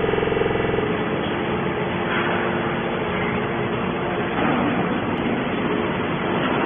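Steady machinery noise. A pitched hum sounds during the first second, then it settles into a dense, even rumble.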